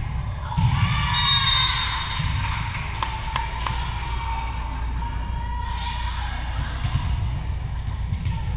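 Volleyball gym sounds: voices calling out and cheering, loudest about a second in, and a few sharp thuds of the ball around three seconds in, over the low rumble of the hall.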